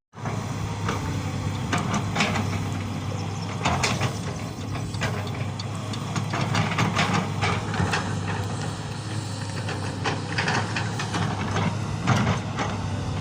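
Diesel engine of a Sany SY215 hydraulic excavator running steadily under work, with irregular metallic clanks and rattles throughout.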